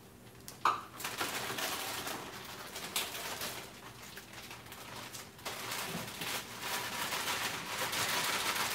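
Raw broccoli florets poured from a bag into a hot pan of rendered pancetta fat, sizzling steadily after a short knock about a second in, the sizzle growing louder near the end.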